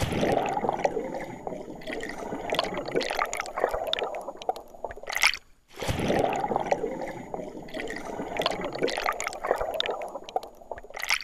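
Water gurgling and splashing, a stretch of about five seconds played twice with a short break between, each ending in a louder burst.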